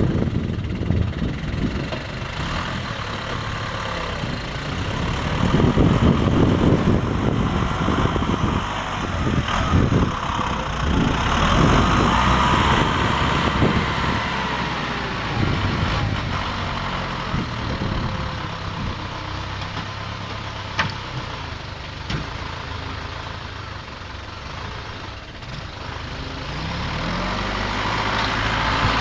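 Diesel engine of farm or baling machinery running, its level rising and falling.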